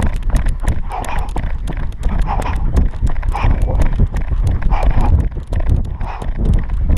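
A runner's footsteps slapping on a paved road in a quick steady rhythm, with hard breathing about once a second and wind buffeting the microphone.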